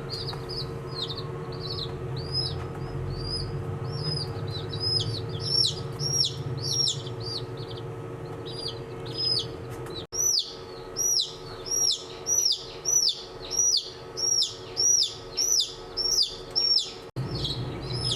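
Baby chicks peeping. Many high, arched peeps overlap at first; after a break about ten seconds in, loud, evenly spaced peeps come about two a second. A steady low hum runs beneath.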